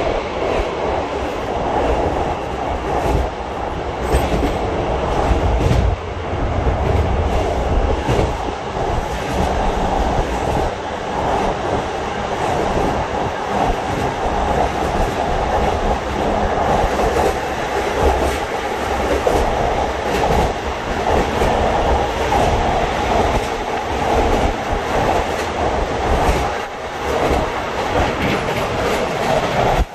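Passenger train running along the track, heard from inside the carriage: a steady rumble and rush of wheels on rails.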